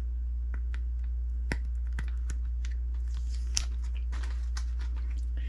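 Scattered light clicks and taps of a plastic and silicone diving mask being handled and turned in the hands, over a steady low hum.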